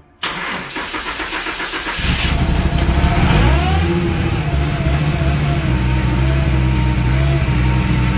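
Whipple-supercharged Holden L67 3.8-litre V6 cranked on the starter, catching about two seconds in, flaring up in revs and then settling into a steady idle.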